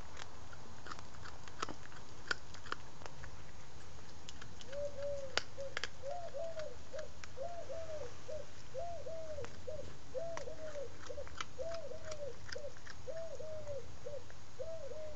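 Cat chewing a mouse, with sharp irregular crunches and clicks of bone. From about five seconds in, a dove coos over and over in short groups of notes.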